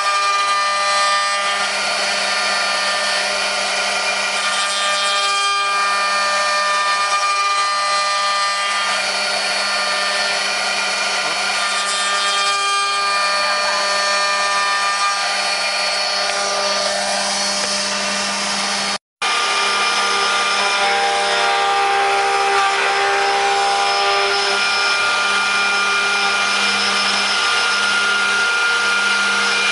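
CNC wood router spindles milling wood: a steady motor whine with the rasp of the cutters chewing through the timber. The sound drops out for an instant about two-thirds of the way through and picks up again with a slightly different whine.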